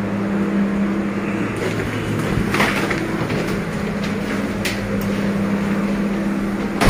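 Freezer cold-room evaporator fan running with a steady electric hum and rush of air. A few light knocks in the middle and a sharp click right at the end.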